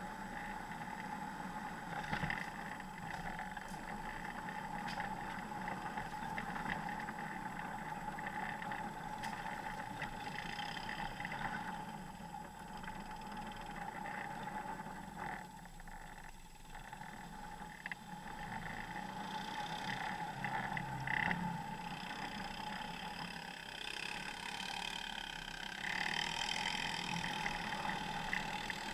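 Off-road vehicle's engine running at a steady pitch as it drives a rough dirt trail, with a few knocks and rattles from the ride over bumps.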